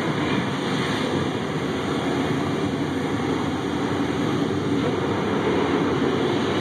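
Car wash blower dryers running, a steady loud rush of air over the car, heard from inside the car.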